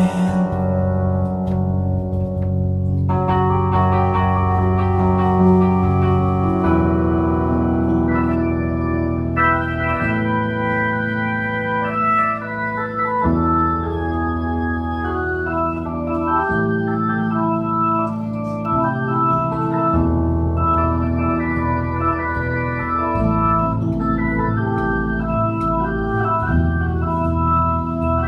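Keyboard playing slow, sustained organ-like chords over held bass notes, the chord changing about every three seconds.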